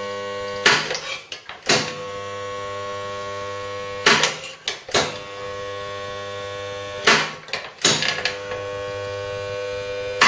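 Resistance spot welder joining two steel wheel-tub repair panels. A steady electrical hum is broken about every three seconds by a pair of sharp clunks about a second apart, as each weld is made.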